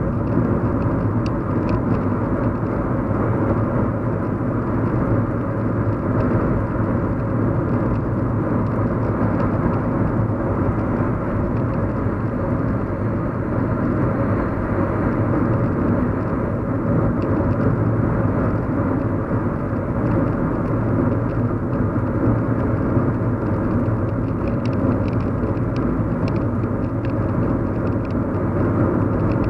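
Steady hum of a car being driven, heard inside the cabin: an even road and engine drone, with a few faint ticks near the end.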